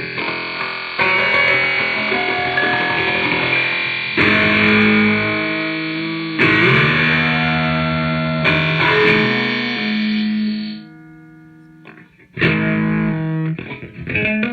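Electric guitar played through a Boss distortion pedal and a Boss DD-3 digital delay pedal. Distorted notes and chords are struck every couple of seconds and ring on, then the sound drops away briefly near the end before a few more notes are played.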